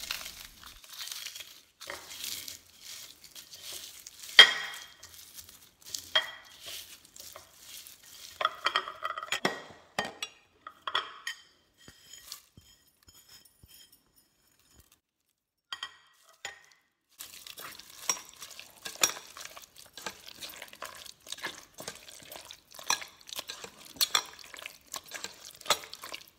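Hands crushing fried dried red chillies and garlic on a ceramic plate, then mashing them into mashed tomatoes in a stainless steel pot: irregular crackling, crumbling and squelching with clinks against the plate and pot. The loudest is a sharp clink about four seconds in. There is a quiet pause near the middle.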